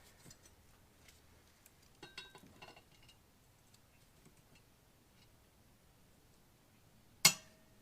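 Hand tools handling a steel go-kart wheel rim. A few light metallic clinks come about two seconds in, then one sharp metallic clank with a short ring near the end.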